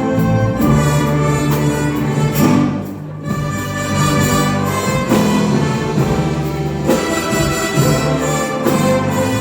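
Orchestra playing with sustained chords and bowed strings to the fore, briefly quieter about three seconds in.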